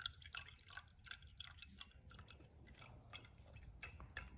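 Liquid filtering through a paper filter in a glass funnel and dripping from the funnel stem into a glass beaker below: faint, quick, irregular drips, several a second.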